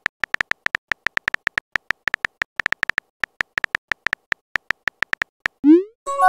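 Chat-app keyboard sound effects: a fast run of short electronic key clicks, several a second, as a message is typed. Near the end comes a quick rising pop as the message is sent, then a short ringing chime.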